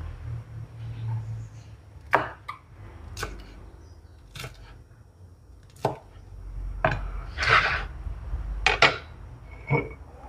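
Cleaver-style knife slicing chillies on a plastic cutting board: sharp, irregular knocks of the blade hitting the board, about ten of them spread across several seconds.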